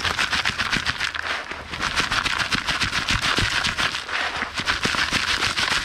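Dry river gravel shaken in a plastic quarter-inch classifier screen over a bucket: a dense, continuous rattle of stones knocking against the mesh and rim as sand and fine gravel sift through.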